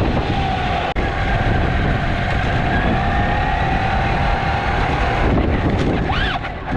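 Steady electric motor whine over heavy wind rumble on the action-camera microphone while riding an electric unicycle, with a brief dropout about a second in.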